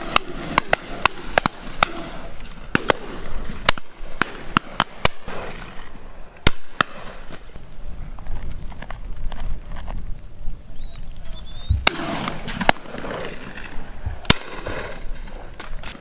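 Shotgun fire from a line of guns on a driven partridge drive: many sharp reports in quick succession, some close and loud, others distant. The shots thin out to a lull of a few seconds midway, then come thick again near the end.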